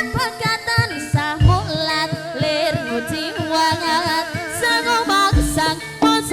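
Jathilan dance accompaniment music, a Javanese percussion ensemble: a wavering lead melody over a steady run of drum strokes, with a deep drum boom about a second and a half in and another near the end.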